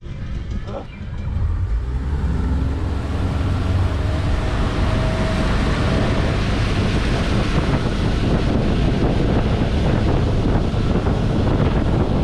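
Pontoon boat's outboard motor running under way, mixed with wind buffeting the microphone and water churning in the wake. The noise builds over the first two seconds, then holds steady.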